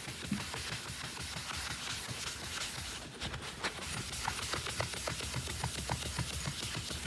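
Melamine-foam magic eraser rubbing on the plastic housing of a Kenmore upright vacuum, quick irregular scrubbing strokes scrubbing off scuff marks.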